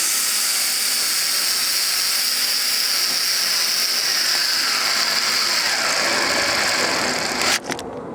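Power drill running steadily at speed, boring a pilot hole with a small starter bit through a wooden board into a mortar tube's wooden plug; it stops near the end.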